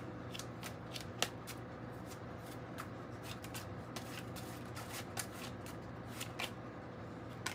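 A deck of tarot cards being shuffled by hand: quick, irregular clicks and snaps as the cards slap against one another, a sharper one about a second in.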